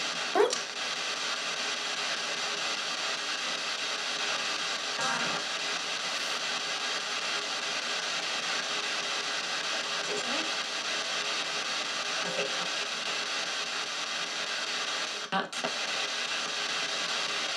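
P-SB7 spirit box sweeping radio stations in reverse through small stereo speakers: a steady hiss of static broken by brief snatches of broadcast voice, some of which the operator takes for spirit replies ("dying", "just me", "answer").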